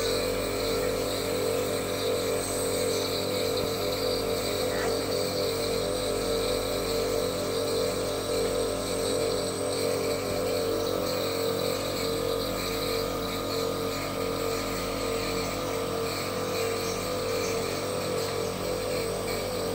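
Compressor nebulizer running: a steady mechanical hum and buzz with a fast, even pulsing.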